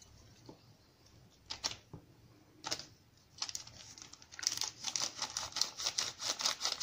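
A paper sachet of Alsa baking powder crinkling as it is shaken and tapped out over a bowl of batter: a few scattered rustles, then a fast run of crisp ticks over the last few seconds.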